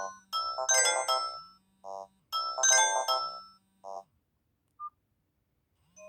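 Nokia 225 ringtone playing through the phone's speaker: clusters of bright electronic notes that stop about four seconds in. After a near-silent pause with a few faint blips, another ringtone starts right at the end.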